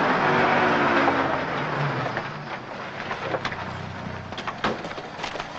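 Citroën Traction Avant car driving up and stopping, its engine noise loud at first and fading over about two seconds. Then come a few sharp clicks and knocks as its doors are opened.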